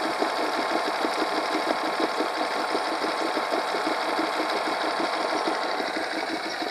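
Honda 8 hp four-stroke outboard engine idling with a fast, even chatter of firing pulses. It runs at a raised idle, the idle screw having been turned clockwise after the pilot jet was cleaned.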